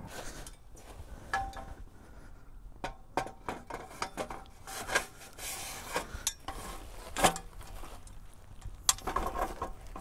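Metal parts of a homemade sawmill frame clinking and knocking together as they are handled and fitted: a scattering of separate knocks, a few with a short metallic ring.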